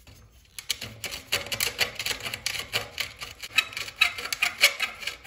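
Chamfer and reamer tool twisted on the cut end of a copper pipe, its blades scraping the edge in a quick, irregular run of clicks that starts about a second in. The pipe end is being deburred and chamfered so it won't catch the press fitting's O-ring.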